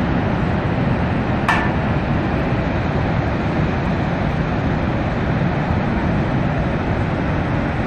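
Steady roar of Niagara Falls' rushing water. A short sharp click comes about a second and a half in.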